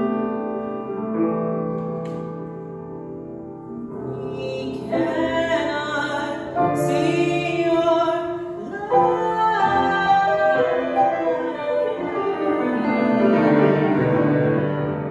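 Grand piano notes ringing and sustaining, joined about four seconds in by a woman's voice singing a sliding, ornamented melody over the piano.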